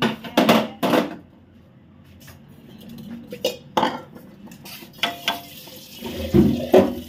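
Kitchen dishes and utensils being handled: a series of separate clinks and knocks of metal ware in a few clusters, the loudest near the end.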